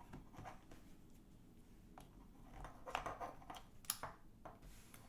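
A handheld multimeter and its test leads being handled: a few faint, sharp clicks and light rattles, mostly in the second half.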